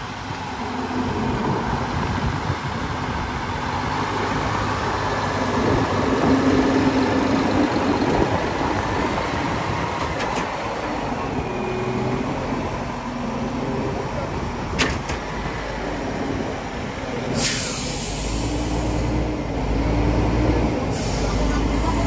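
Mack truck's diesel engine running steadily, with two loud bursts of hissing air near the end.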